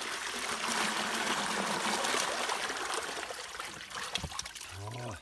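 Water and live carp pouring out of a tipped plastic tub into the shallow edge of a pond, a steady rush and splash that eases off near the end.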